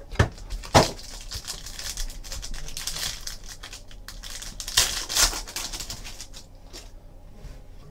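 Foil trading-card pack wrapper crinkling and rustling in the hands, a rapid run of crackles, loudest in a burst about five seconds in as the pack is torn open.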